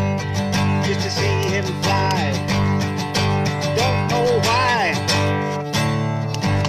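A man singing while strumming chords on an acoustic guitar, with a steady strumming rhythm.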